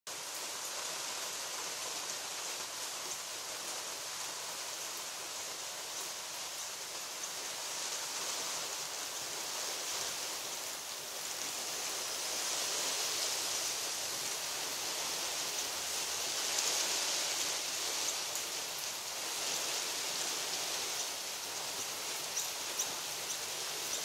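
Steady outdoor background hiss, swelling a little around the middle and again about two-thirds of the way through.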